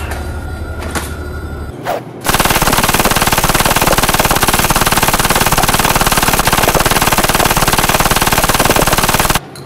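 Rapid automatic gunfire in one continuous machine-gun burst of about seven seconds, starting a little over two seconds in and cutting off suddenly near the end; it goes with a Nerf blaster being fired. Before it, music plays briefly and there is a single thump.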